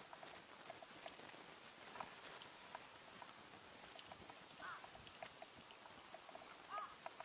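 Faint sound of a horse grazing: a scattered string of short, crisp ticks as grass is torn and chewed. Two brief chirps come through, one about halfway and one near the end.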